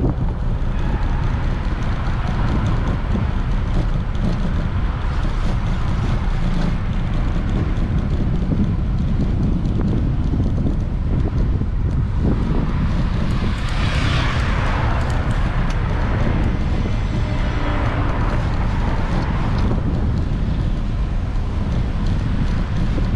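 Wind buffeting the microphone of a moving bicycle, with street traffic passing alongside. One vehicle passes close and loud a little past halfway, and another a few seconds later.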